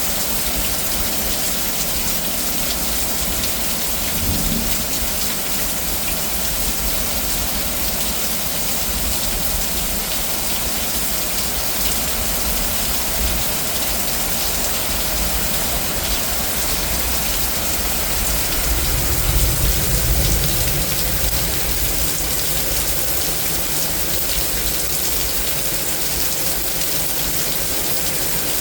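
Heavy rain from a severe thunderstorm pouring down steadily in a dense hiss. A low rumble swells briefly about two-thirds of the way through.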